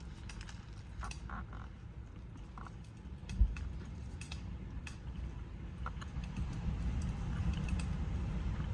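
Someone eating a quesadilla: small scattered clicks and mouth sounds, with one sharp thump about three and a half seconds in, over a steady low rumble.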